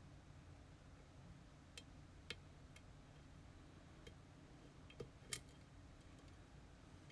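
Faint, scattered small clicks, about six in all, two louder ones close together about five seconds in: picking tools working in an EVVA Dual dimple lock cylinder.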